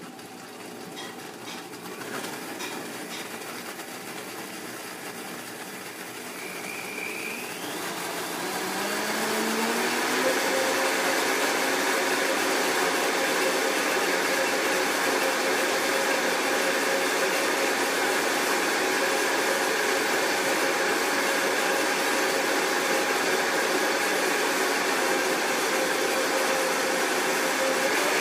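High-powered countertop blender pureeing soaked dried apricots in water. It starts at a lower speed, its motor pitch rises as it speeds up over roughly the first ten seconds, then it runs steadily at high speed.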